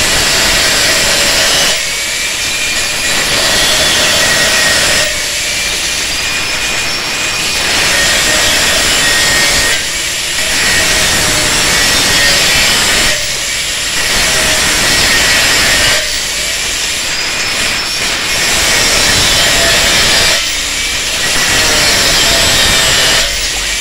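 Handheld angle grinder with an abrasive cut-off disc cutting through a steel saw blade: a loud grinding screech over the motor's thin steady whine. The cutting noise eases briefly every three to four seconds and then comes back.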